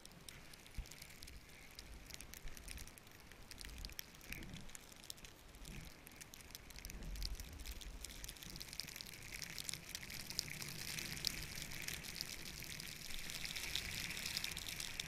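Snowboard sliding through powder snow: a soft hiss full of fine crackling, with low wind rumble on the camera microphone, growing gradually louder toward the end as the ride speeds up.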